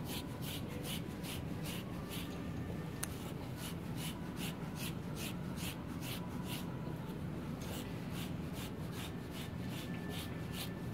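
Andis undercoat rake drawn through an Airedale terrier's wiry coat, pulling out loose undercoat: short brushing strokes at about two a second, with two brief pauses, over a steady low hum.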